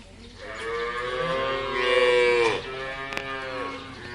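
Cow mooing: one long moo that grows louder toward its end, then a second, quieter moo.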